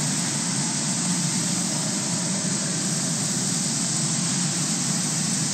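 Steady hiss with a low rumble beneath it, unchanging and without distinct events.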